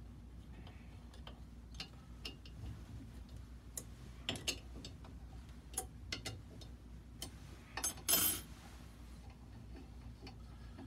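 Small metal tools clicking and tapping against a cylinder head's threaded valve-opening rig as it is adjusted by hand: irregular sharp clicks, with a short louder rattle about eight seconds in, over a steady low hum.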